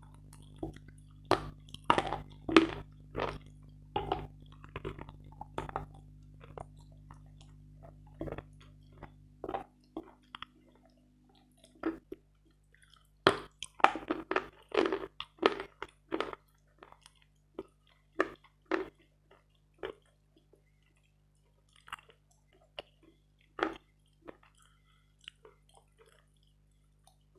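Close-miked mouth crunching and chewing of a dry, dense, grainy bar of Metel chalk: sharp crunches come in quick clusters, then thin out to scattered single bites over the last third.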